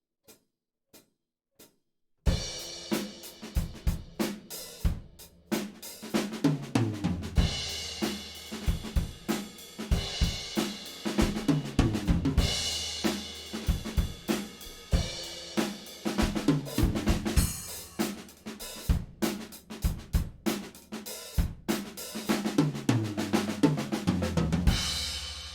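Studio-recorded acoustic drum kit played solo: kick drum, snare, hi-hat and cymbals in a steady groove, broken by fills down the toms. A few faint evenly spaced ticks come before the kit comes in about two seconds in. It closes with a cymbal crash that rings out.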